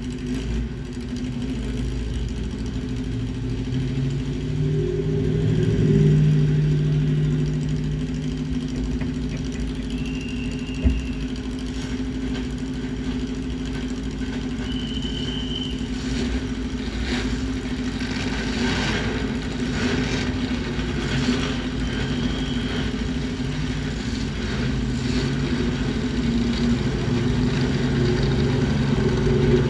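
Datsun roadster race car's four-cylinder engine idling, heard from the cockpit, with the revs rising briefly about six seconds in and climbing again near the end.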